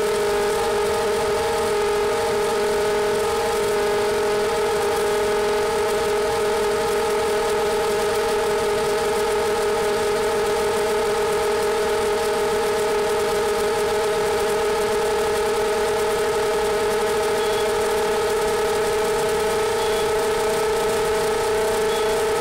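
Quadcopter's brushless motors and propellers running at a steady climbing throttle: a constant hum with several pitches held level.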